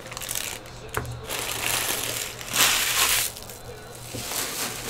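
Foil wrapper of a trading card pack crinkling as it is pulled open and crumpled in the hands, loudest in a burst about two and a half seconds in.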